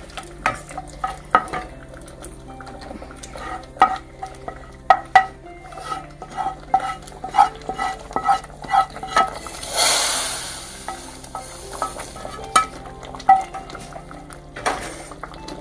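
Spatula clicking and scraping against a small nonstick frying pan as a ghee tempering with Kashmiri red chilli and whole dried red chillies is stirred. About ten seconds in comes a brief, loud hiss as the hot tadka is poured into the cooked dal, followed by a few more clicks.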